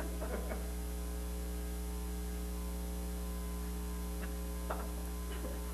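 Steady electrical mains hum with a stack of even overtones, unchanging throughout, with a few faint brief sounds about three-quarters of the way through.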